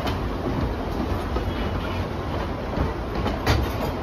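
Narrow-gauge open-air passenger coaches rolling past on the track: a steady rolling noise, with one sharp knock about three and a half seconds in.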